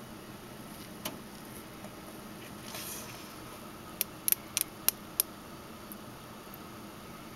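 Hardwicke's spiny-tailed lizard (Uromastyx hardwickii) crunching red lentils: a few scattered crisp crunches, with a quick run of about six sharp ones between four and five and a half seconds in, over a steady faint hiss.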